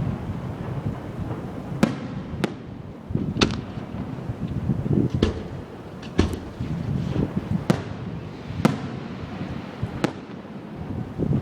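Aerial fireworks bursting: about nine sharp bangs at irregular intervals of a second or two, with a low rumble and echo between them.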